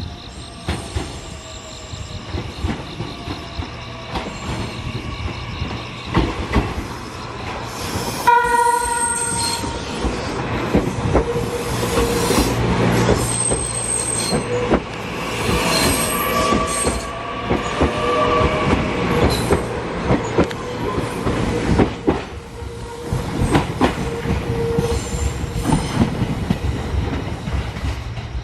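Meitetsu electric train passing over a level crossing, its wheels clattering and squealing on the rails, with a short horn blast about eight seconds in.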